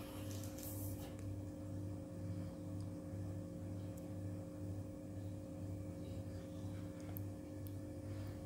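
A steady machine-like hum with a low throb pulsing about twice a second.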